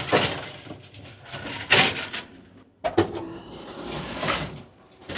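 Clattering, rushing noise of walking through the connection between two Amtrak Superliner cars, the end doors sliding open and shut. It comes in about four loud swells, with a sharp knock about three seconds in.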